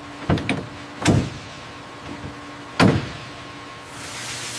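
Several sharp knocks of tools and metal parts being fitted on an aircraft engine assembly, the first two close together, over a steady low machinery hum. Near the end a rising whoosh swells up.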